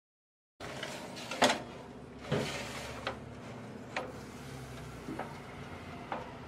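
Metal baking tray knocking and scraping against the oven rack as it is slid into an oven: several sharp clanks over a steady hum, the loudest about a second and a half in.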